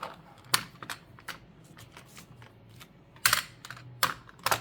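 Sharp, irregular clicks and taps from a small watercolor paint set being handled, about five in all. The loudest come in a cluster near the end.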